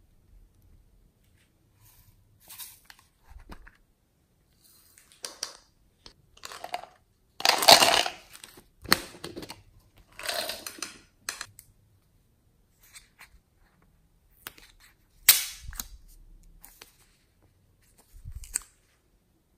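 Small plastic slime jars and bottles being handled, opened and squeezed out, making an irregular string of clicks, crackles and squishes. The longest and loudest come about eight and ten seconds in.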